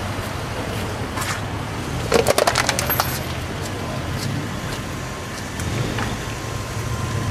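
Steady street traffic noise with a low engine hum, broken a little over two seconds in by a quick run of sharp clicks lasting about a second.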